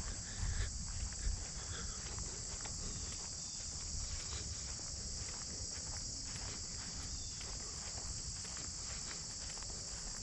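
A steady, high-pitched chorus of insects, such as crickets, with footsteps crunching along a dirt trail. There are a few low thumps in the first second or so.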